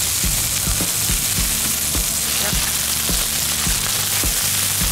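Smashed burger patties sizzling steadily on a Blackstone flat-top griddle, searing into a crispy crust, over background music with a steady beat.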